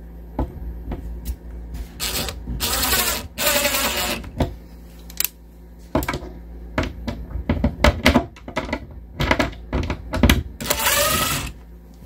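Power drill running in several short bursts as it drills a new screw hole in a wooden cabinet door and drives a screw, with many sharp clicks and knocks of handling between the bursts.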